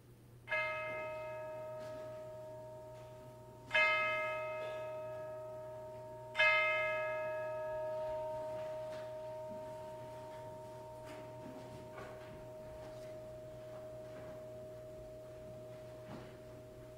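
A tubular chime struck three times with a mallet, the strokes a few seconds apart, each ringing on and slowly fading: the three strokes sounded for the Trinity.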